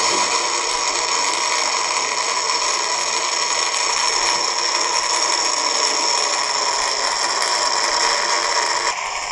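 Delta IV Heavy rocket's three RS-68A engines during liftoff and ascent: a loud, steady rush of noise that eases slightly near the end.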